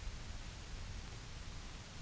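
Faint steady hiss with a low rumble underneath: the background noise of an old film soundtrack.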